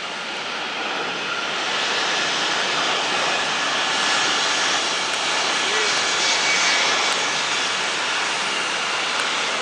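Boeing 747 jet engines running as the airliner passes: a steady rushing noise that swells over the first couple of seconds and then holds, with a faint high whine.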